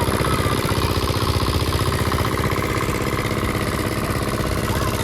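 A small engine running steadily at an even idle, with fast regular firing pulses.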